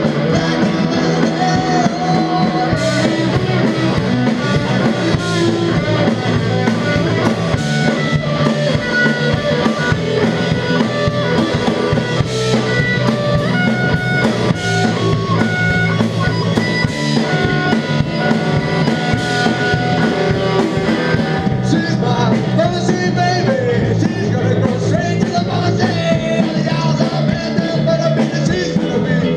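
Rock band playing live: electric guitar, bass guitar and drum kit, with repeated cymbal crashes that give way to a lighter texture about twenty seconds in.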